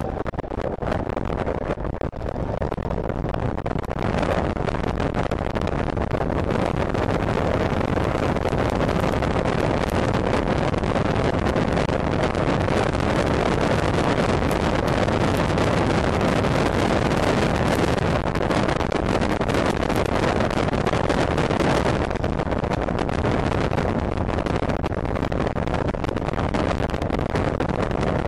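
Zongshen electric race motorcycle at racing speed, heard from its onboard camera: a steady rush of wind over the microphone with the electric motor's whine faintly beneath it.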